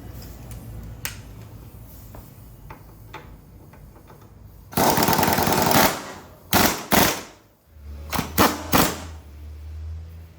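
Impact wrench running in the rear shock mounting bolts. About five seconds in it gives one rapid hammering burst of about a second, then several short blips as the bolts seat. A low steady hum starts near the end.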